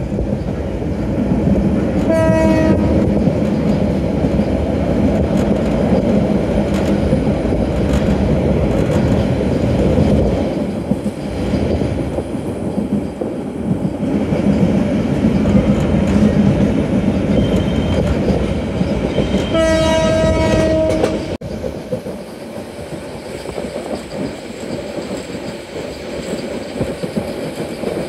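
Bangladesh Railway Titas Commuter train running, with a steady loud rumble of the train on the rails. Its horn sounds twice: a short blast about two seconds in and a longer one near twenty seconds in. The rumble then drops suddenly to a quieter level.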